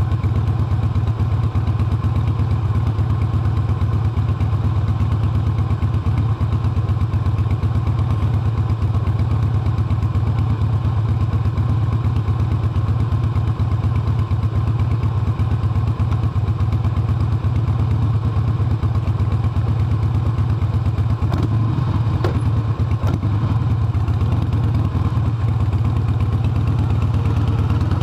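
Harley-Davidson motorcycle's V-twin engine running steadily at an even speed while the bike is ridden.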